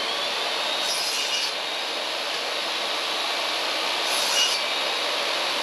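Portable jobsite table saw running at full speed with a steady high whine, its blade cutting a shallow notch in a small wooden block. The cut gets briefly harsher twice, about a second in and again near four seconds.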